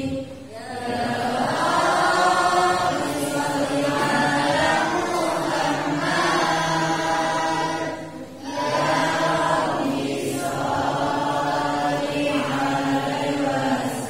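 A group of girls chanting a maulid devotional text together over microphones. There are two short pauses for breath between lines, one about half a second in and one about eight seconds in.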